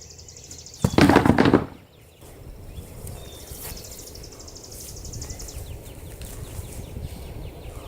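Wind rumbling on the camera microphone, with a loud brief noise about a second in. A high, fast-pulsing trill sounds twice in the background.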